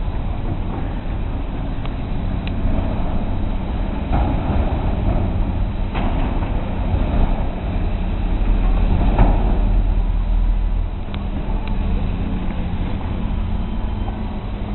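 Steady low engine rumble with a faint hum, swelling a little around the middle, with a couple of faint clicks.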